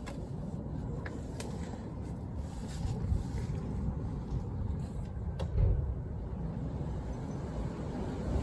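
Low steady outdoor rumble with a few faint clicks.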